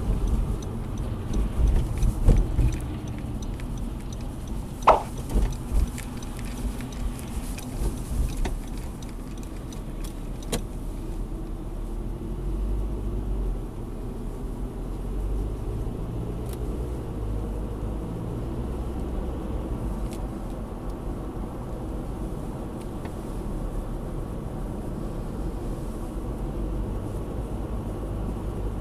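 Car cabin noise while driving at moderate speed: a steady low engine and tyre rumble. There are a few knocks and bumps in the first several seconds and one short rising squeak about five seconds in.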